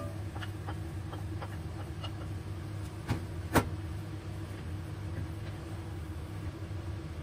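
Lettuce and tomatoes tipped into a black cast-iron pot of vegetables and turned with a wooden spatula: a few light taps and clicks, then a knock and a sharper click about three and a half seconds in, over a steady low hum.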